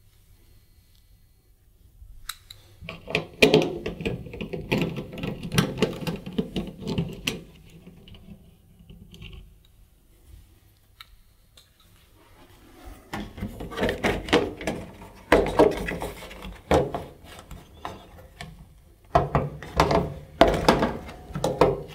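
Plastic heat shield on the back of a tumble dryer being unclipped and worked off the metal casing: clusters of plastic clicks, knocks and rattles. There are two runs of them, with a quiet spell of several seconds between.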